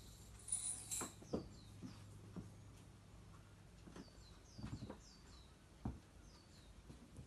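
Small bird chirping faintly and repeatedly, short falling chirps in quick runs of two or three, with a few soft knocks and thumps, the loudest about a second in and near six seconds.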